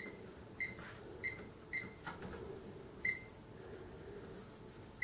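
Sam4S NR-510F cash register's flat keyboard beeping at each key press as text is typed in: five short, high beeps at uneven intervals, the last about three seconds in.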